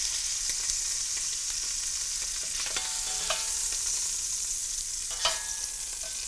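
Hot oil and rendered beef fat sizzling steadily in a Dutch oven after searing short ribs, with a few light clicks of metal tongs, the sharpest about five seconds in.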